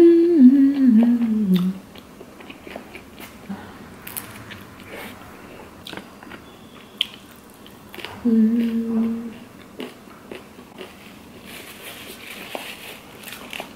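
A woman's closed-mouth hum of enjoyment, falling in pitch, then chewing and small crunches of food, with a second short hum about eight seconds in. Paper napkin rustles near the end.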